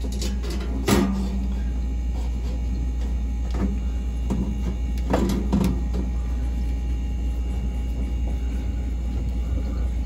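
Short knocks and clicks as the fridge's rear cover panel is fitted back on and screwed down with a screwdriver, about a second in and again around five seconds, over a steady low hum.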